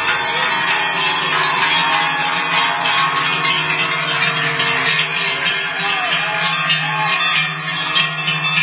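Many large cowbells clanging together as a herd of cows walks past close by, a dense, continuous jangle of overlapping bell tones.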